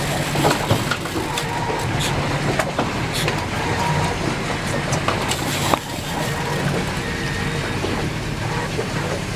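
Boat engine running steadily at slow trolling speed, a low hum under wind and water noise, with scattered light clicks and one sharper knock about six seconds in.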